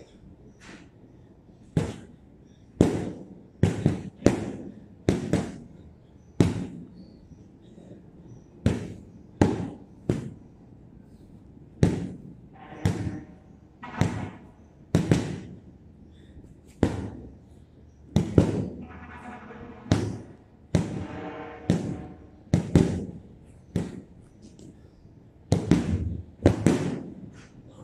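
Boxing-glove punches landing on a hanging heavy bag: irregular thuds about once a second, often in quick pairs.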